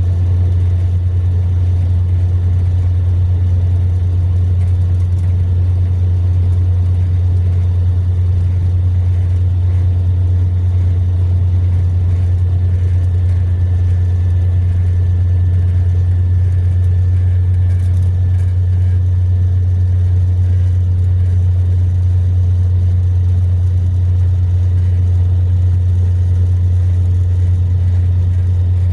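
Mercedes-Benz long-distance coach cruising on a highway, heard from inside the cabin: a loud, steady low engine and road drone that holds unchanged throughout.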